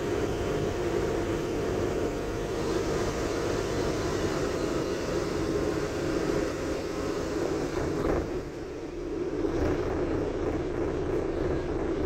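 Renfe Cercanías commuter train running, heard from inside the carriage: a steady rumble of wheels on rail and drive noise, dipping briefly about eight seconds in.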